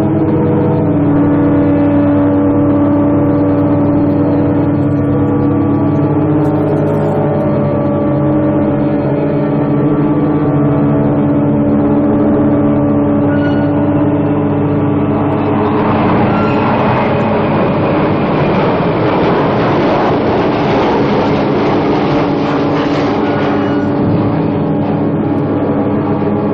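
Film-score drone: a sustained chord of several steady, organ-like tones. A rushing, whooshing noise swells in a little past halfway, peaks, then fades a couple of seconds before the end.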